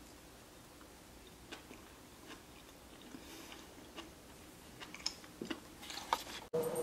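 A person chewing a mouthful of penne pasta with closed lips: faint, soft mouth noises and small clicks, a little louder near the end.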